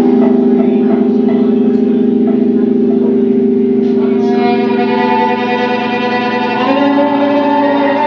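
Live string trio playing held, wavering bowed tones, with higher sustained notes coming in about halfway through.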